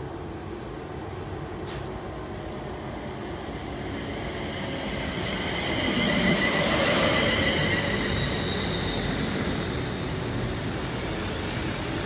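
London Northwestern Railway Class 350 Desiro electric multiple unit pulling into the platform. It grows louder as it approaches and is loudest about six to seven seconds in as it runs past close by, with high whining tones over the rumble of the train.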